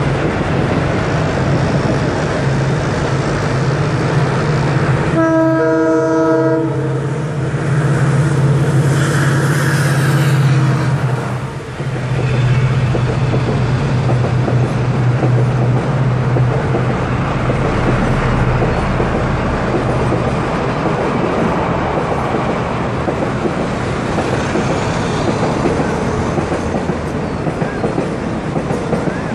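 WDP-4B diesel locomotive (EMD two-stroke engine) hauling a passenger express, approaching and passing below with a steady low engine drone. Its horn sounds once for about a second and a half, some five seconds in. After it has passed, the coaches keep rolling by.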